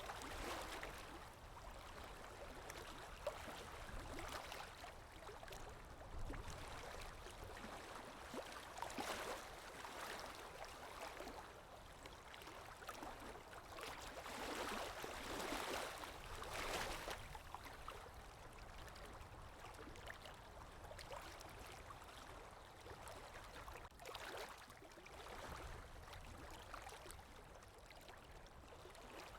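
Lake Erie waves breaking and washing onto the shore, a rushing wash that swells and fades every few seconds, the biggest surges about halfway through.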